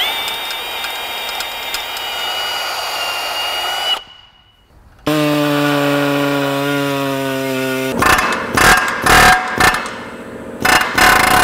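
Cordless drill running steadily as it bores down through a rubber lower control arm bushing. After a short break, a pneumatic tool hums steadily and then works in short stuttering bursts as it cuts the bushing's shell to split it out.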